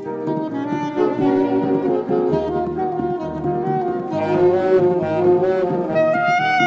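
Saxophone playing the melody of an upbeat medley over piano accompaniment, with a brighter, higher phrase near the end.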